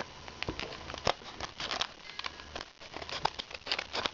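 Plastic retail packaging being handled and crinkled, a run of irregular crackles and clicks.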